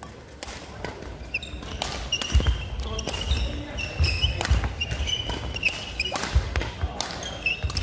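Badminton doubles rally: rackets cracking against the shuttlecock several times a second, with trainers squeaking in short high chirps on the sports-hall wooden floor and footfalls thudding as the players move.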